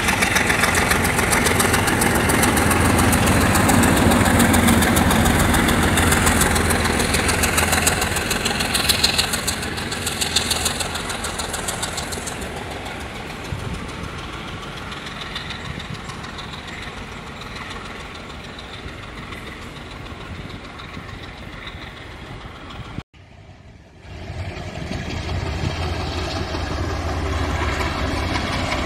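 Alco diesel-electric locomotive passing close with its engine running loud, fading into a steadier rumble of coaches rolling over the rails. After a brief break about 23 s in, a second Alco diesel locomotive's engine sound builds as it draws near.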